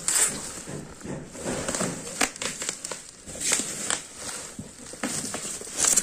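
Cardboard box being handled and opened: irregular rustling, scraping and crinkling of cardboard and plastic wrapping, with a scatter of sharp clicks and taps.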